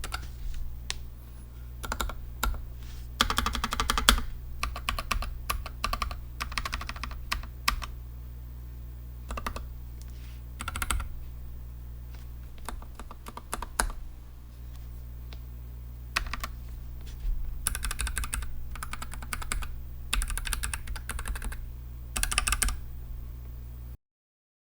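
Typing on a NuPhy Air60 low-profile mechanical keyboard with Gateron red switches. Rapid keystrokes come in irregular bursts with short pauses and cut off suddenly near the end.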